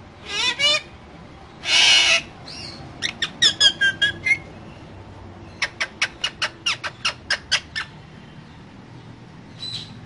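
Alexandrine parakeet calling: a rising call, a loud harsh squawk about two seconds in, then two quick runs of short sharp chirps.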